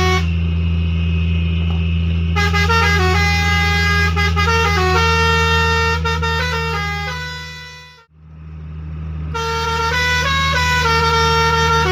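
Six-trumpet 'basuri' telolet musical air horn playing a tune of held notes that step from pitch to pitch, over a steady low hum. About eight seconds in it fades out to silence, then fades back up and the melody carries on.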